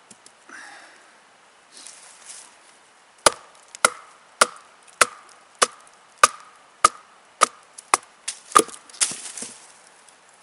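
Bark River Sahara knife chopping into a green sapling: about ten sharp, evenly spaced strikes, close to two a second, each with a short ringing tone, followed near the end by a brief crackle of wood.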